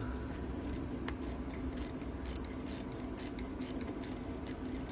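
A steady low machine hum with a soft high hiss pulsing regularly, about three to four times a second.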